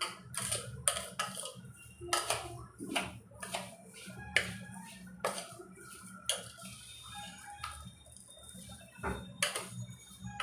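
A metal spoon stirring a thick mix of grated gooseberries and sugar in a stainless-steel bowl, with irregular clinks and scrapes against the bowl, about one or two a second.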